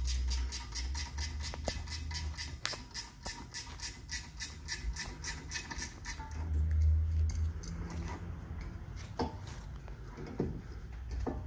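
Ratchet wrench clicking rapidly and evenly, about six to seven clicks a second, as a brake caliper bolt is backed out. The clicking stops about six seconds in, followed by scattered metallic clinks and knocks as the caliper is handled.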